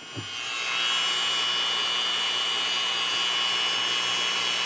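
Small high-speed rotary drill with a very fine bit spinning up over about a second, then running steadily with a high whine as it drills a small hole in the lens's thin aluminium zoom arm.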